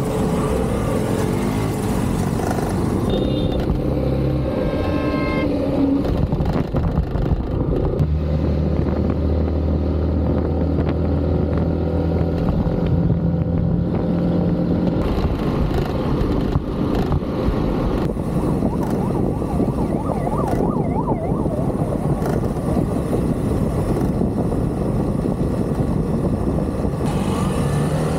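Motorcycle riding on a road: steady engine hum with heavy wind and road noise on the microphone, and a horn sounding briefly about three seconds in.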